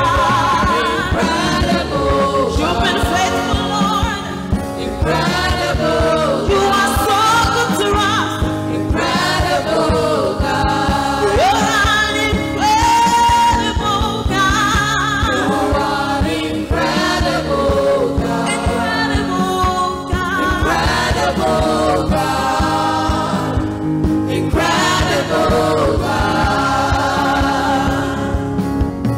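Gospel praise song sung live through microphones by a worship team, a lead singer with backing vocalists, over a band accompaniment with a steady beat.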